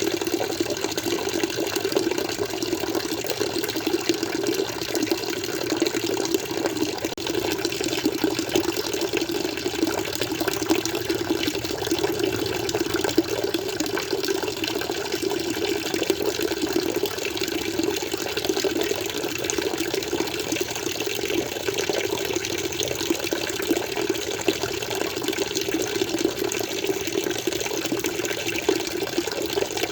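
Water flowing and splashing steadily, a continuous dense trickle with no change or break.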